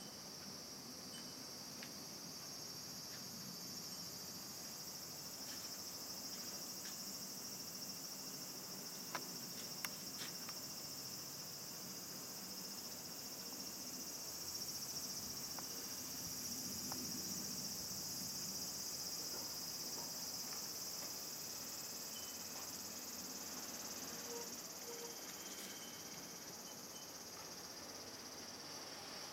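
Insects calling in a steady, unbroken high-pitched drone, with a couple of light clicks about nine and ten seconds in.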